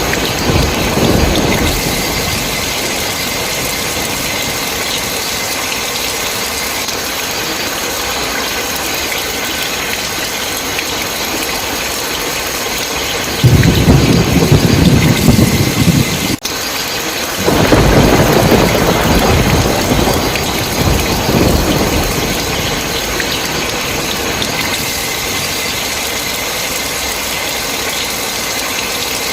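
Steady heavy rain with rolling thunder. A loud rumble about halfway through cuts off suddenly, and a second one follows a second later and fades away over several seconds.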